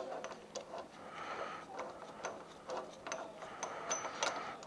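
Metal hand tools and axle hardware clicking and scraping while a wheelie peg is fitted to an e-bike's rear axle. The clicks are irregular, each with a short high metallic ring, with a grating scrape between them.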